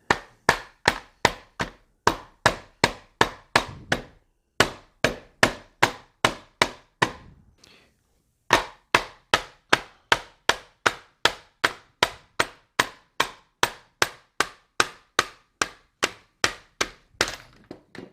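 Repeated sharp taps, about two to three a second with one brief pause partway through, struck against a rail-mounted riser to drive the upper half of a Hi-Point 995 carbine off its MBS-95 bullpup stock.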